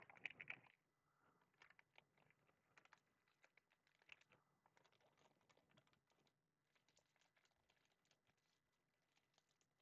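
Waxed-paper wrapper of a vintage baseball card wax pack crinkling and crackling faintly as it is unfolded by hand. It is louder for the first half-second, then goes on as scattered soft crackles.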